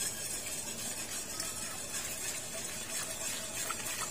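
Steady hiss from a wok of hot coconut milk on the burner as cornstarch slurry is poured in and stirred with a wire whisk, with a few faint light scrapes of the whisk.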